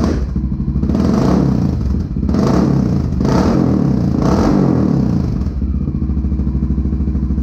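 Honda XR650L's air-cooled single-cylinder four-stroke running through a Big Gun EVO R slip-on exhaust with its spark arrestor removed. It is revved in four quick throttle blips, then drops back to a steady thumping idle about five and a half seconds in.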